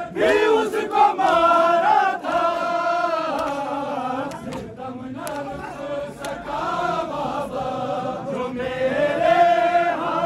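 Crowd of men chanting a noha, a Shia lament, together in long drawn-out sung lines.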